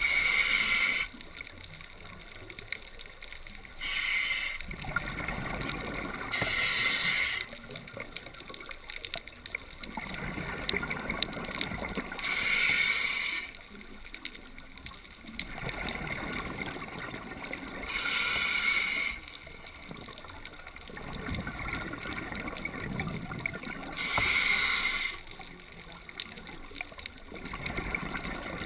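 Scuba diver breathing through a regulator underwater: a hiss about a second long every five or six seconds, with longer, lower bubbling between the hisses.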